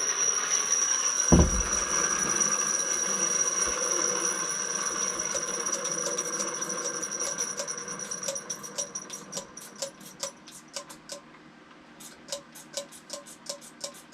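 A nearly empty trigger squirt bottle pumped over and over, giving sharp clicks at about two to three a second that grow clearer from about halfway. Before that a steady hiss fades away, with one thump about 1.5 s in.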